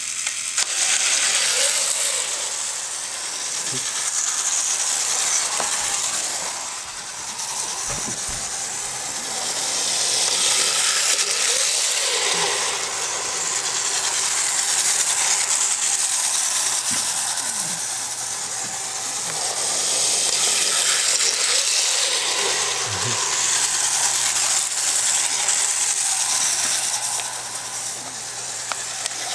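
The small electric motor and gears of a Power Trains toy bullet train whir steadily as it runs around plastic track. The sound grows louder and fainter every several seconds as the train comes near and moves away.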